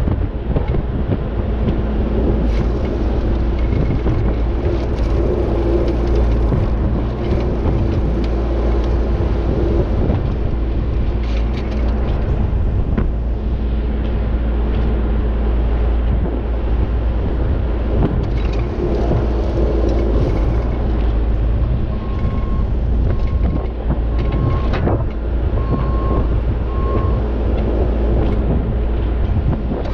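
Tractor engine running steadily under load while pulling a PTO-driven Harley power rake, whose rotating drum churns through loose dirt with scattered clicks and rattles.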